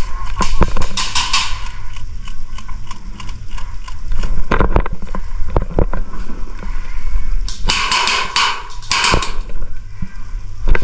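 Rustling and knocking with a steady low rumble and scattered sharp clicks, with louder hissing rustles about a second in and again near the end.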